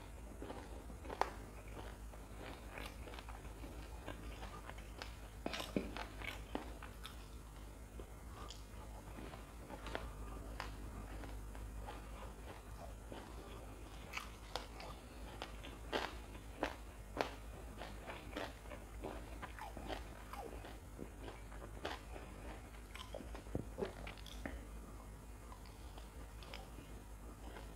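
Close-miked chewing and crunching as a person eats a batter-fried chili and raw red onion slices, with sharp crisp bites every second or so over a steady low hum.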